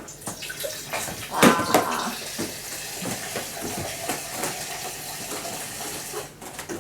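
Crinkling and rustling of a tissue box and its tissues being handled and grabbed, many small crackles with a louder burst about a second and a half in.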